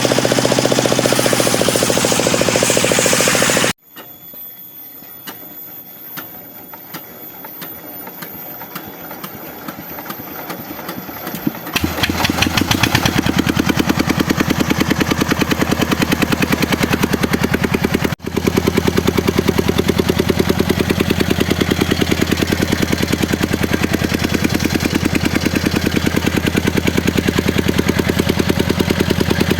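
A loud noisy sound cuts off suddenly about four seconds in, followed by several seconds of faint ticking. About twelve seconds in, the engine that drives a homemade circular-saw rig starts and keeps running with a steady, rapid pulsing beat, broken only by a momentary dropout.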